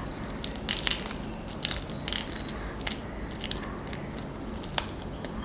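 Faint, irregular small clicks and crackles of micropore tape and black peppercorns being handled as the peppercorns are packed into the tape with the fingers.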